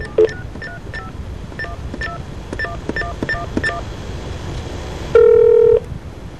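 Telephone line audio of a touch-tone keypad dialing: about a dozen quick two-tone beeps over the first four seconds, then a louder steady tone lasting just over half a second about five seconds in.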